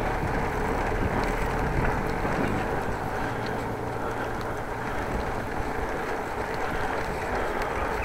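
Steady rushing of wind over the microphone while riding a bicycle, with the low rumble of the ride underneath.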